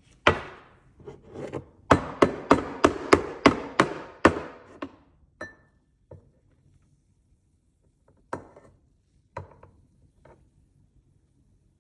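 A series of sharp knocks or taps on a hard surface: a quick run of about eight in the first half, then a few spaced-out ones.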